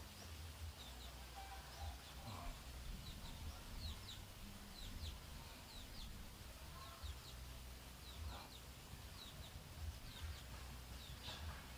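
Quiet rural yard ambience: small birds chirping in short, quick notes that fall in pitch, repeated throughout, with a few faint chicken clucks, over a steady low rumble.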